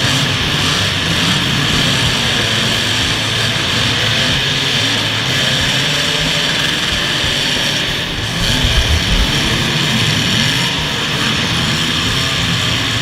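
Several demolition derby cars' engines running and revving together, a loud, steady drone with pitches rising and falling.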